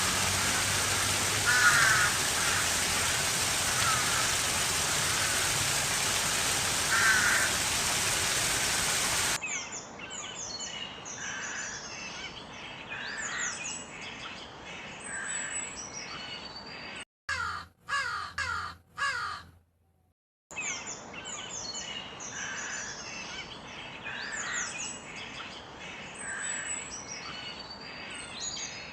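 Crows cawing: first a few loud caws over steady heavy rain, then, after a sudden change, caws among many small birds chirping. Around the middle there is a short run of three or four loud caws on their own.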